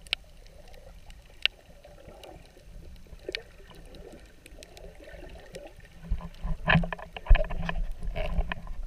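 Water heard from underwater: a soft, muffled sloshing with a few scattered sharp clicks, turning into louder low thumps and splashing about six seconds in.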